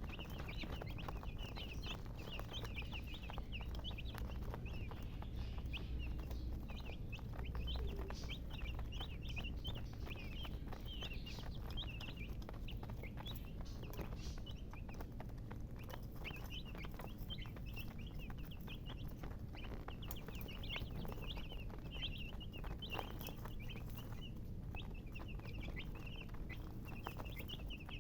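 Baby chicks peeping: many short, high chirps overlapping continuously, over a steady low hum.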